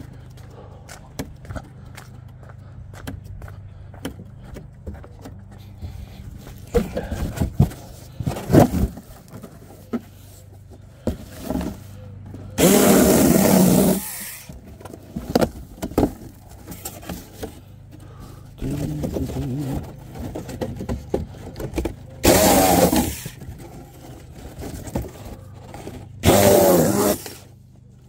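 A power saw cutting through cardboard in three short bursts of a second or so each, the first about halfway through and the other two near the end. Knocks and rustling come before the first cut.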